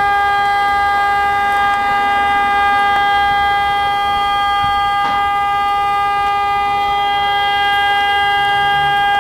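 Vehicle horn sounding continuously at one steady, unchanging pitch, loud and unbroken.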